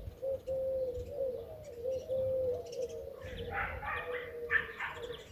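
Garden birds calling: a low, wavering cooing runs throughout, and bursts of higher chirping join from about three seconds in.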